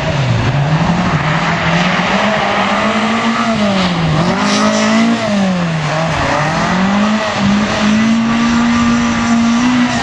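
Rally car engine revved hard, its pitch rising and falling with the throttle, dipping twice in the middle and then held high near the end.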